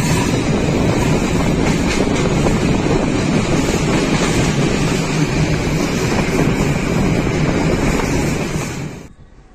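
Steady running noise of a train heard from an open carriage window, with wind buffeting the microphone. It cuts off suddenly about nine seconds in to a much quieter background.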